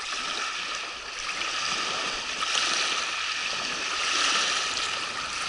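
Small river waves lapping against the shore: a steady wash of water that swells and eases.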